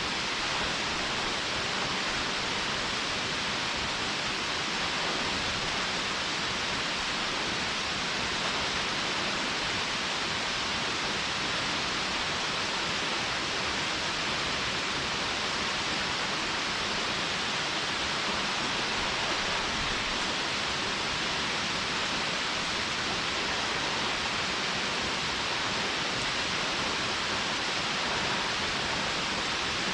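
Rushing water of a mountain stream just below a waterfall: a steady, unbroken hiss, brightest in the upper range.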